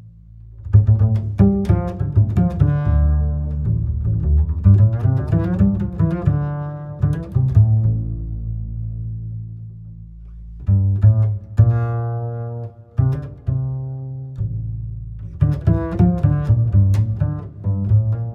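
Background music: low bowed and plucked strings, cello and double bass, playing in phrases with short pauses.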